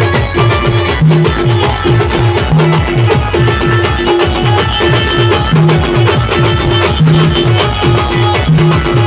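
Loud Adivasi timli band music without singing: a fast steady beat of low drum hits that drop in pitch, about four a second, under a short repeating keyboard-like figure.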